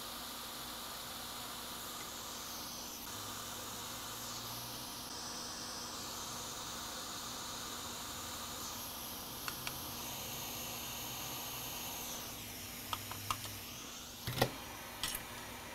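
Steady faint hiss with a low hum under it. A few small sharp clicks and taps come in the last few seconds, as metal tweezer tips touch and release tiny surface-mount parts on a circuit board.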